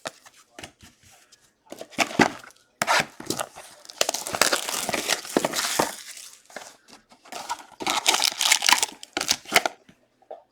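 Crinkling and tearing of a trading-card pack wrapper being opened, in several bursts of rustling: briefly about two seconds in, longest from about three to six seconds, and again from about seven to nine and a half seconds.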